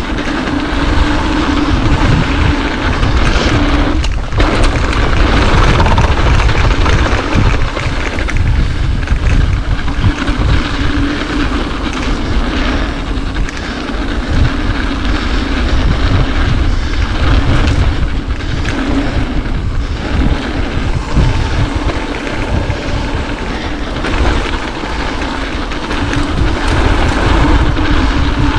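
Mountain bike riding a dirt singletrack trail: wind buffeting the camera microphone over tyre rumble and bike rattle. A steady buzzing tone fades in and out, and there is a sharp knock about four seconds in.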